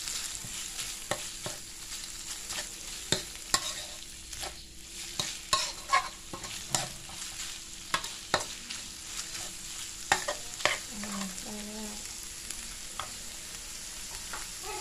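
Minced pork and chili paste sizzling in a wok while being stir-fried, with a metal spatula scraping and clinking against the wok at irregular moments.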